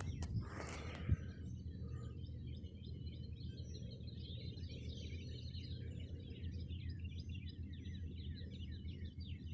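Many birds chirping and twittering in a dense, continuous chatter, over a steady low rumble of wind or water. A brief rustle and a single click come in the first second.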